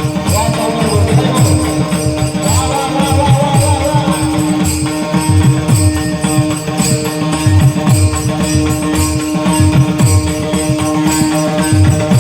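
Devotional kirtan-style music: small hand cymbals (taal) strike in a steady rhythm over drum beats and one held note.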